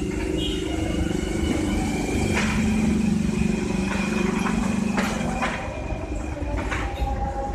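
Steady motor-vehicle engine noise: a low hum with higher whining tones, broken by a few sharp clicks.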